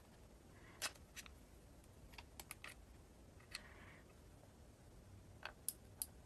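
Faint, scattered small clicks and taps of a SIM card tray being handled and pushed into the slot of a plastic kids' phone, with a quick run of clicks about two and a half seconds in.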